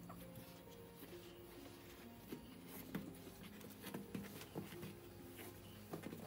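Faint background music of soft held notes changing pitch, with scattered light taps and scratches throughout.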